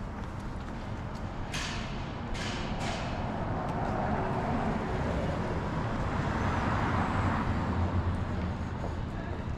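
Road traffic. Three short, sharp hisses come between about one and a half and three seconds in, then a heavy vehicle passes, growing louder through the middle and dropping away near the end.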